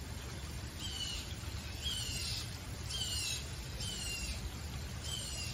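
A bird calling repeatedly: five short chirps, each falling in pitch, about one a second, over a steady low rumble.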